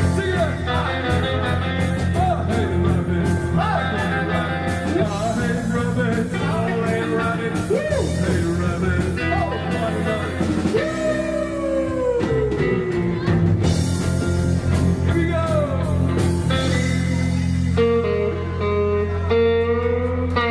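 Rock band playing an instrumental passage: lead electric guitar bending and sliding notes over steady bass and drums.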